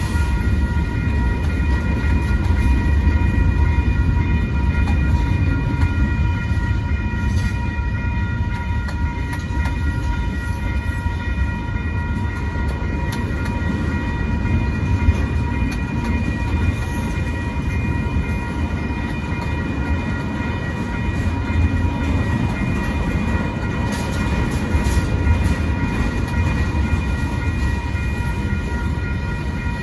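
Freight cars of a BNSF manifest train rolling past with a steady, heavy low rumble. A steady high ringing in several tones sounds over the rumble throughout, and there are a few faint clicks.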